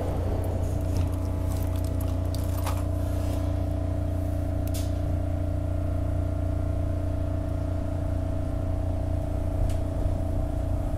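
Steady low rumble and hum inside a SEPTA Market-Frankford Line subway car moving along a station platform, with a few faint clicks and rattles in the first five seconds.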